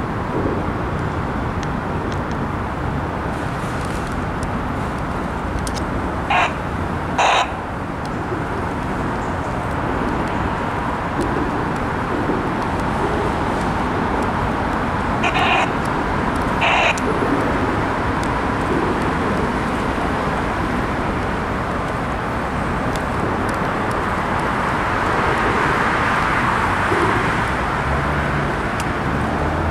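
Steady noise of road traffic on the elevated I-95 highway overhead. A crow caws twice about six seconds in, and twice again about fifteen seconds in.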